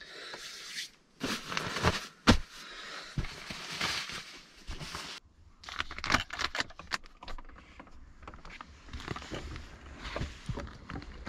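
Rustling and handling noises of a person moving about and handling gear, broken by sharp knocks and clicks: a loud knock about two seconds in and a quick cluster of clicks around six seconds in, then quieter irregular rustling.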